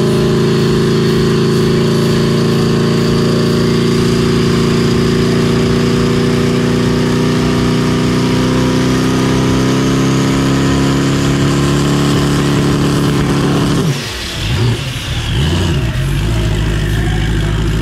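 Turbocharged drag car engine held on the transbrake against a 4,400 rpm rev limiter, running loud and steady at one speed while the torque converter slips and heats up, with a high whine climbing slowly. About 14 seconds in it drops off the limiter and settles to a lower steady idle.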